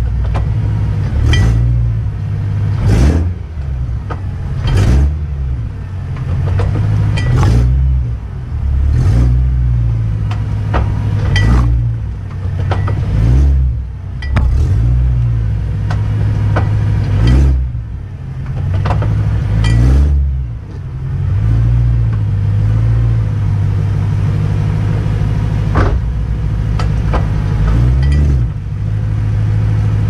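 BMW E93 M3's 4.0-litre V8 driveline heard from beneath the car at low speed, the engine note rising and falling as throttle goes on and off. Repeated sharp clunks every few seconds, the driveshaft clunk the owner was chasing.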